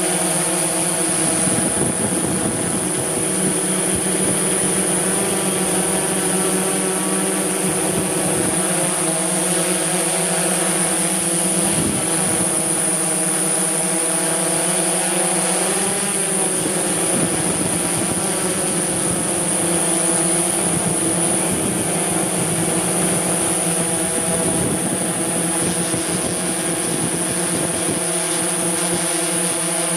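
DJI S1000 octocopter's eight motors and propellers running in flight: a steady, many-toned drone buzz whose pitch wavers briefly about halfway through, with a thin high whine held above it.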